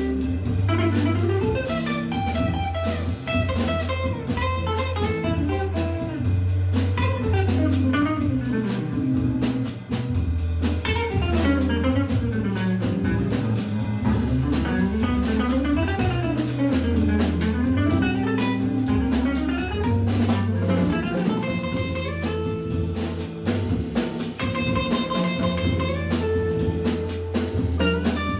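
Live jazz organ trio playing: an electric guitar runs fast rising and falling lines over a Hammond B3 organ's bass line and a drum kit with cymbals. Held chords come in near the end.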